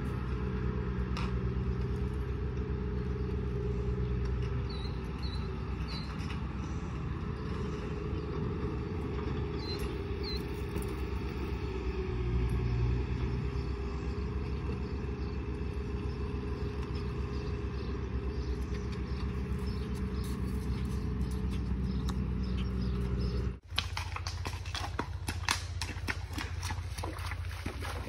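An engine idling steadily with a low hum, with a few faint bird chirps. About three-quarters of the way through it cuts to a horse's hooves splashing through a shallow, stony creek, with wind on the microphone.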